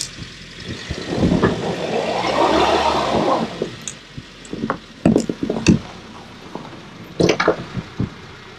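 A car driving out through deep snow: its tyres churn and spray snow in a rushing swell for about two seconds, then a run of crunches and knocks as it comes past.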